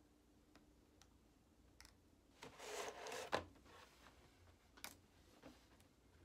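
Faint crinkling and rubbing of a thin clear plastic candy mold being flexed as soft gummies are worked out of it. A brief rustle about two and a half seconds in ends in a sharp click, with another click near five seconds and a few light ticks.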